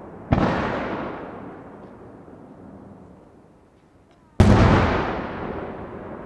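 Two aerial firework shells bursting overhead at close range: a bang about a third of a second in and a louder one about four seconds later. Each bang is followed by a long echo that slowly dies away.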